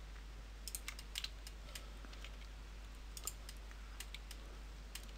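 Computer mouse buttons and keyboard keys clicked at irregular intervals, with a quick run of clicks about a second in, over a steady low hum.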